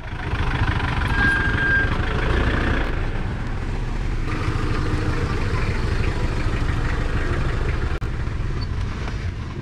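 Pickup trucks driving slowly out past at close range, a steady low engine rumble, with a motor scooter following near the end.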